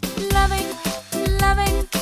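Children's background music with a steady beat and a bouncy melody.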